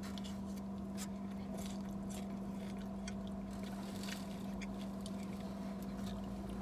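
Close-up chewing of salad, with scattered small clicks of a plastic fork against a takeout container, over a steady low hum.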